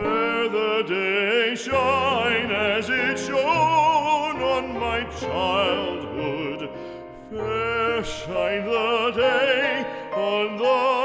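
Background music: operatic singing with heavy vibrato over a held accompaniment.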